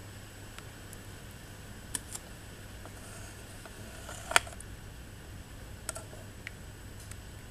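Light clicks and taps from spoon-feeding a small turtle in a shallow plastic tub. There are a few scattered clicks and one sharp tap about four seconds in, over a steady low hum.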